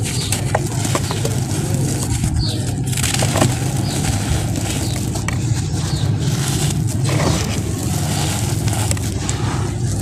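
Molded clumps of dry red sand crunching and crumbling as hands squeeze and break them, with loose gritty sand trickling and pattering down, a dense run of small irregular crackles.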